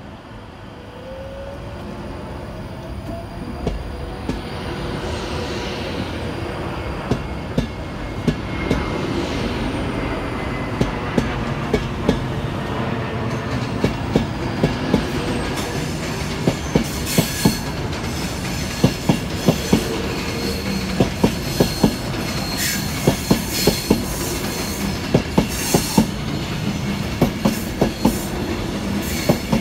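Class 390 Pendolino electric train pulling away, growing louder over the first ten seconds with a whine that rises in pitch early on. Wheel clicks over the rail joints then come closer and closer together as the carriages gather speed past the platform end.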